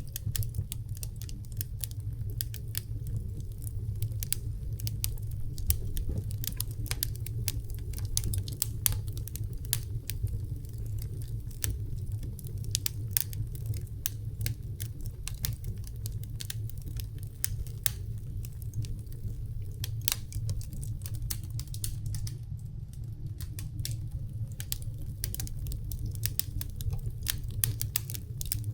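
Wood fire burning in a fireplace stove: logs crackling with many irregular sharp pops over a low steady rumble.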